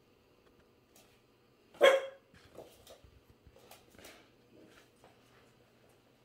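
A small Cairn terrier x Biewer Yorkie puppy gives one sharp bark about two seconds in, at its own reflection in a mirror, followed by a few much fainter small sounds and clicks.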